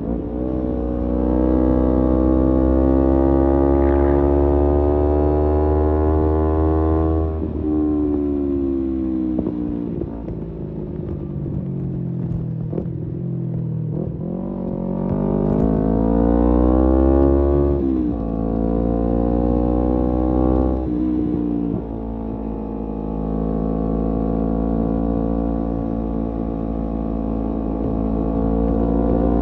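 Exhaust note of a Kawasaki Z250 parallel-twin with an aftermarket SeaPro muffler, riding along. The pitch holds high early on, falls away and slows through a deceleration in the middle, then climbs again with two quick dips at gear changes before settling into a steady cruise.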